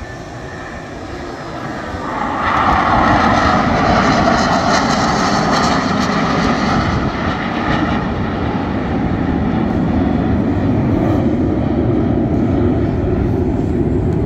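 A formation of T-50B supersonic jets flying past, their jet engine noise swelling about two seconds in. A whine falls in pitch as they go by, leaving a steady lower rumble.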